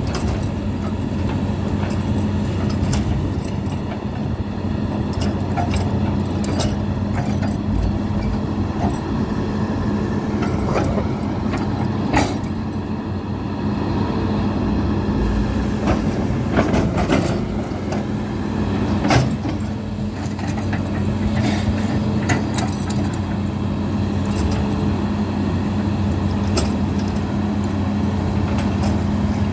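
Amphibious excavator's diesel engine running steadily, an unchanging hum with a few sharp clicks and knocks over it.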